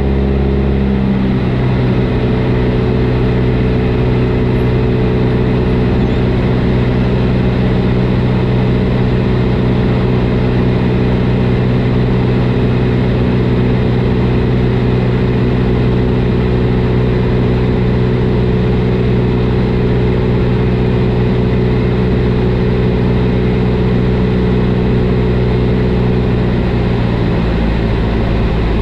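Single-engine light aircraft's piston engine and propeller running steadily in cruise flight, a loud constant drone heard inside the cabin. Its tone shifts slightly about a second in and again near the end.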